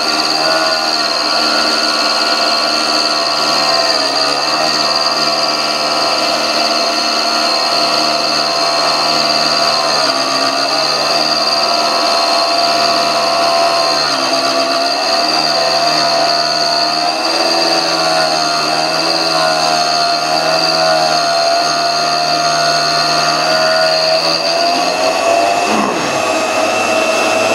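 Home-made tool post grinder, belt-driven by a sewing machine motor, running with a steady whine as its wheel grinds the 60-degree point of a steel dead center turning in a mini lathe. Near the end the whine falls away in pitch as the grinder is switched off and spins down, while a steady hum carries on.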